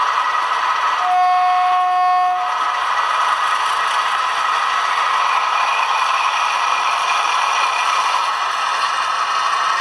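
PIKO SM31 model diesel locomotive's onboard sound decoder playing a steady diesel engine run through its small speaker, with model running-gear rattle. About a second in, the model sounds one horn blast lasting just over a second.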